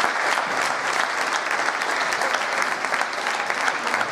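Audience applauding, the steady clapping of many hands.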